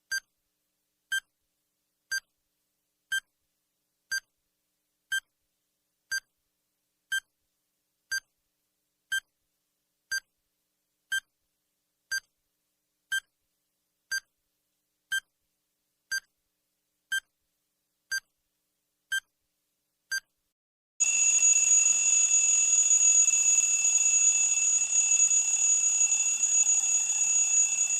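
Countdown timer sound effect: a short electronic beep once a second, ticking off the last seconds. About 21 seconds in, at zero, the beeps give way to a loud continuous alarm ring signalling that time is up.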